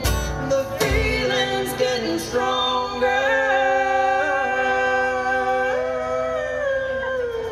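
Instrumental break of a live acoustic song: a harmonica played into a cupped microphone holds long notes and chords, changing pitch about three and about six seconds in, over strummed acoustic guitar.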